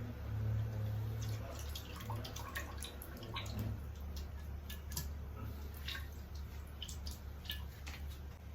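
Coconut milk in a cooking pot making irregular small dripping ticks, over a steady low hum.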